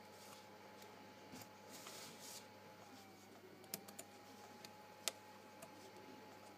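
Faint small clicks, taps and a brief rustle of tweezers and fingers handling a smartphone's plastic frame and circuit board, with a few sharp clicks near the middle and the loudest single click about five seconds in.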